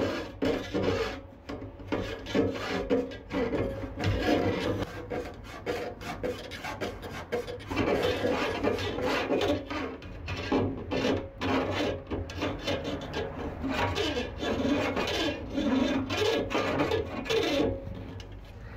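Quick, irregular rasping and rubbing strokes.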